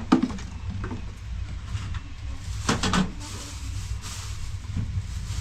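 A few sharp knocks and clatters of objects being handled, a cluster of them near the middle, over a steady low rumble.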